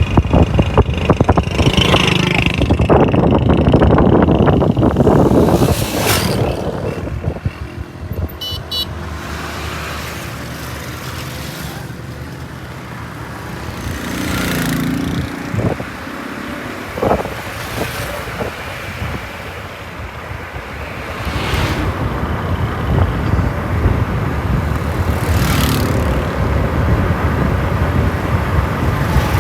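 Outdoor road traffic: motor vehicles passing with a rumbling noise, loud at first, easing off in the middle and building again in the last third.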